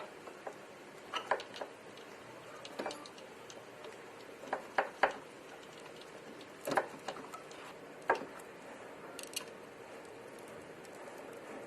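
Scattered metallic clicks and light knocks from an air-conditioning compressor's clutch plate being fitted back onto its shaft by hand. They come at uneven intervals, with the loudest pair about five seconds in.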